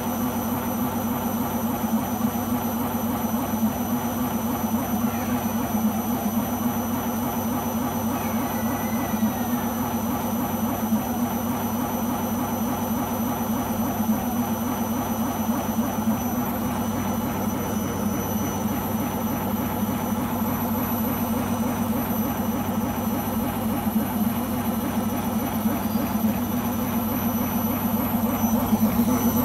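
Beko washing machine running with a steady drone and a fast rhythmic rumble from the turning drum, a little louder near the end: a strange noise which the owner puts down to the rubber behind the drum.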